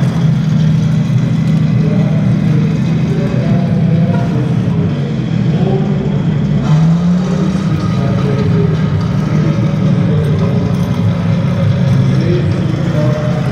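Engine sound of a large-scale RC King Tiger (Tiger II) tank model, running steadily with a brief rev about seven seconds in as it drives over a dirt mound.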